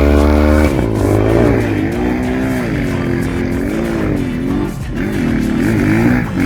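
Trail motorcycle engine revving up and down repeatedly, its pitch rising and falling every second or so while it works through slippery mud.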